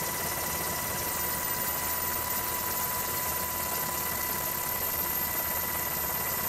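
Steady helicopter noise from the engine and rotor, with a thin steady high whine over it.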